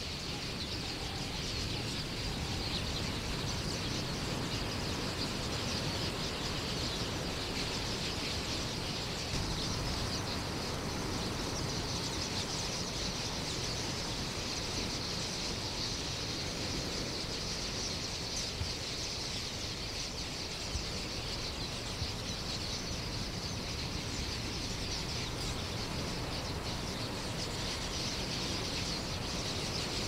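Dense, unbroken chirping of a huge flock of small birds crowding a waterhole to drink, with a steady low rushing noise underneath.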